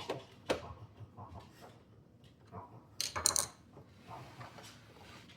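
A few sharp clicks, then a brief metallic clinking rattle about three seconds in, from parts of an espresso machine being handled and fitted back together.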